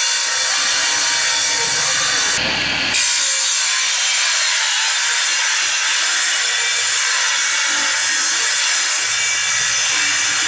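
Homemade bench woodworking machine, driven by an electric motor underneath, running and cutting wood as a plank is fed across it: a loud, steady hiss.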